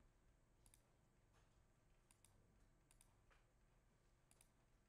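Near silence broken by about six faint computer mouse clicks, several in quick pairs, as points of a lasso selection are placed.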